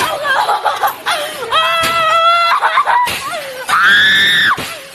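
A person screaming and crying out in distress: shorter cries, then a long high-pitched scream about halfway and another near the end.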